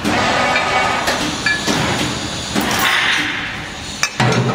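Irregular metallic clinks and knocks, several over a few seconds, as steel wire mesh is handled on the take-up roller of a hexagonal wire netting machine, over a steady background noise.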